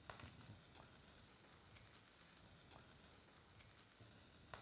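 Near silence, with a faint sizzle of food frying in a pan and a few small crackles.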